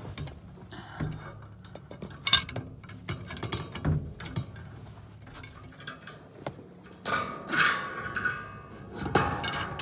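Metal clinks and scrapes of a steel pry bar and hook working an HWH hydraulic leveling jack's coil return spring as it is stretched down to be hooked into its hole. A sharp clink comes about two and a half seconds in, and a longer rough, ringing metallic scrape near the end.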